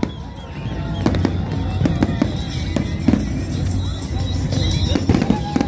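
Aerial fireworks bursting in a rapid string of sharp bangs and crackles, about two or three a second.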